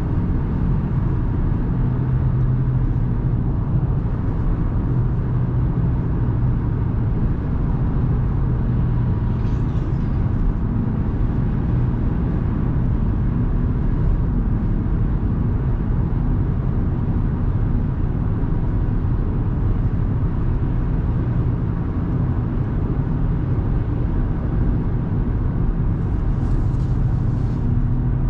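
Steady low rumble of tyre, road and engine noise from a 2024 Audi A3 Sportback 1.5 TFSI, a turbocharged four-cylinder petrol, cruising on the motorway at an even speed.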